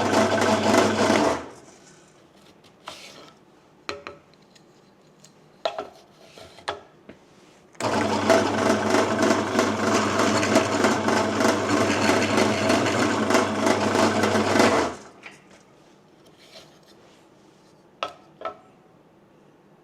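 Pillar drill running and boring into a wooden block, a dense grinding noise over the motor's hum. It cuts off about a second in and comes back for about seven seconds in the middle. Between the two spells there are a few light clicks and knocks.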